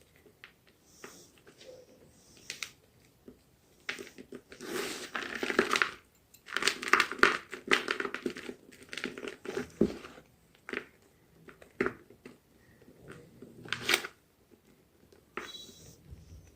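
Homemade gym chalk being crushed, crunching and crackling in irregular bursts. The densest crunching is about four and seven seconds in, with single sharp snaps later on.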